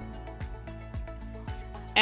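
Background music with a steady beat, about two beats a second, and held tones.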